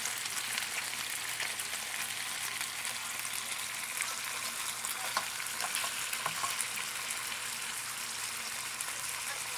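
Teriyaki-marinated chicken thighs sizzling as they sear in a skillet with their sauce, a steady frying hiss scattered with crackles and a few sharper pops near the middle.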